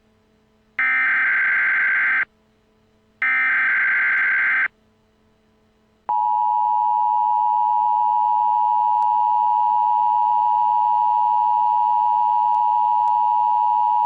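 Emergency Alert System tones: two bursts of SAME header data tones, each about a second and a half with a short gap between. About six seconds in, the steady two-tone EAS attention signal starts and holds, cutting off suddenly at the end.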